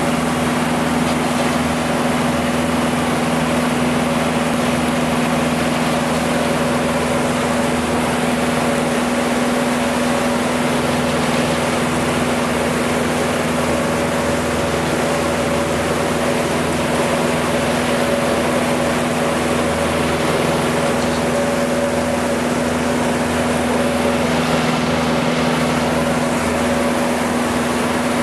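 Outboard motor running steadily with the boat under way, a constant hum, over a steady rush of water from the wake.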